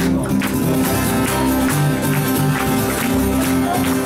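Live music from two acoustic guitars played at once, one across the lap and one held upright, strummed and picked in a driving rhythm with a steady sharp percussive hit about every half second.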